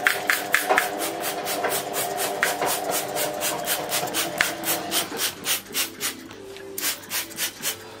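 Quick, even scrubbing strokes by hand on the side panel of a cooker, about four a second, pausing about five seconds in and starting again near the end.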